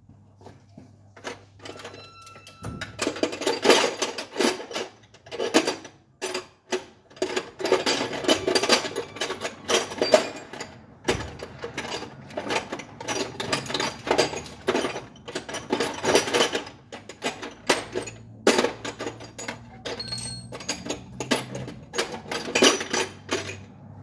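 Ratchet wrench clicking in quick runs of strokes with short pauses, starting about three seconds in, as bolts are worked during removal of a starter motor.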